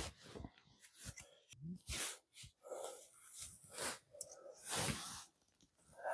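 Rustling of a padded winter jacket and handling noises as a thermometer is tied onto a tree trunk, heard as a string of short irregular scuffs.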